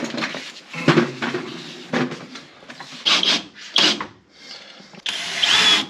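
A sheet of drywall being handled against wooden wall framing: rubbing and scraping, two sharp knocks about three and four seconds in, and a loud scrape near the end.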